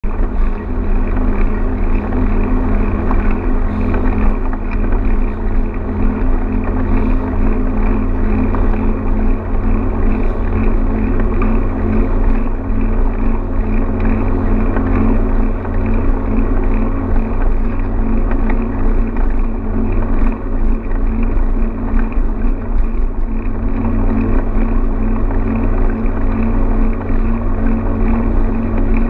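Steady, loud wind rumble on a handlebar-mounted camera's microphone, mixed with the rolling noise of a mountain bike moving over hard-packed beach sand, with a constant low hum underneath.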